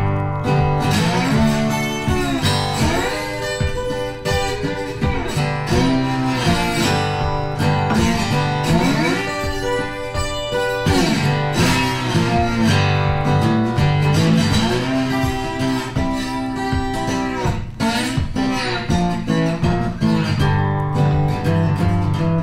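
Background music led by guitar, with some sliding notes.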